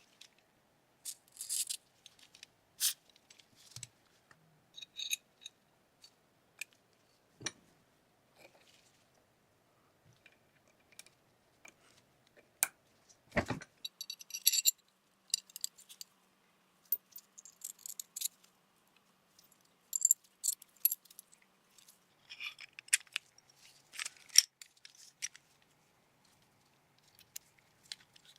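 Small steel pistol parts being handled on a workbench: irregular clicks and clinks, some ringing briefly, with a heavier knock about halfway through.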